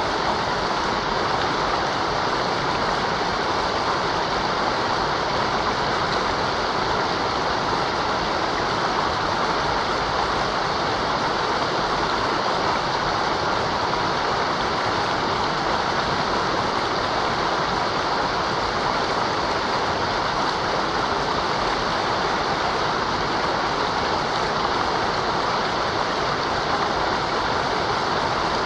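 Mountain river rushing over rocks, a steady, unbroken rush of water.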